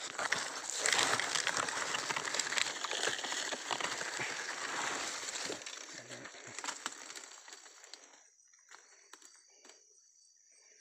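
Dry leaves and brush rustling and crackling loudly as they are pushed through, for about eight seconds before dying away. A steady high insect trill runs behind.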